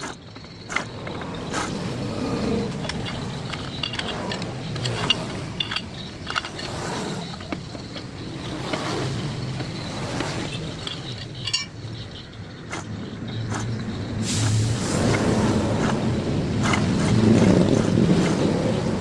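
Metal tools clinking, knocking and scraping on a truck differential as it is being adjusted. A vehicle's engine runs in the background and grows louder near the end.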